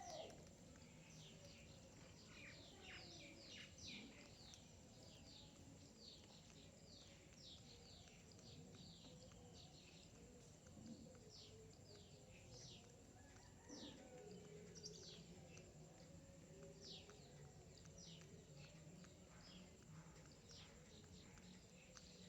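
Faint chirping of small birds: many short, high, falling chirps, several a second, over a low steady hum.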